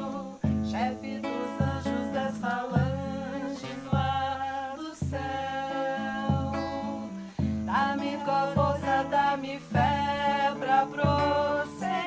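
Women singing a devotional chant to Saint Michael, accompanied by a strummed nylon-string acoustic guitar. A low beat falls about once a second.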